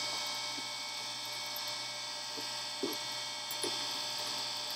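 A steady hum with a few faint clicks in the second half as a drill bit is fitted and tightened into a lathe's tailstock drill chuck.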